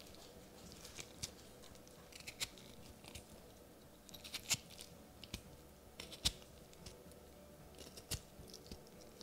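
Metal fork tines repeatedly pricking a peeled potato held in the hand, giving faint, irregular crunchy clicks a second or so apart.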